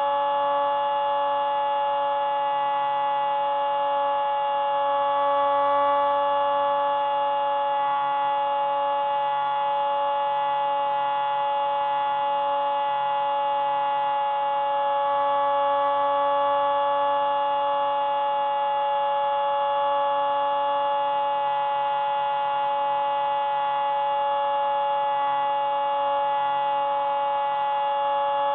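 Hubsan Spyhawk FPV plane's electric motor and propeller, picked up by its onboard camera: a steady, even whine at cruise power that wavers only slightly in pitch and level as it climbs into cloud.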